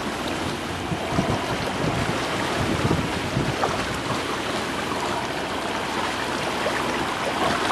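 Wind buffeting the microphone over the steady rush of sea water past the hull of a sailing yacht under way, with gusty low rumbles in the first few seconds.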